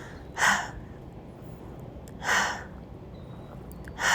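A woman's forceful exhales, three of them about two seconds apart, each a short breathy burst. They are her breathing out on each knee-to-elbow crunch from high plank.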